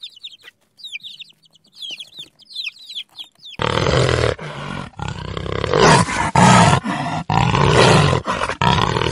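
Baby chicks peeping in short, high, falling chirps; then, about three and a half seconds in, a tiger starts roaring and growling, much louder, broken by several short gaps.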